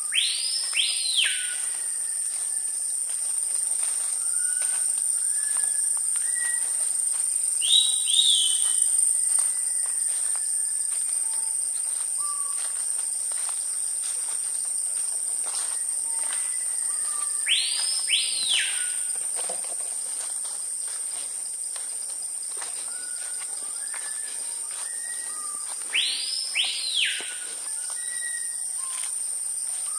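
Tropical forest ambience: a steady high-pitched insect drone with a bird giving loud whistled calls that swoop up and back down in pairs, three times, plus softer short whistles from other birds.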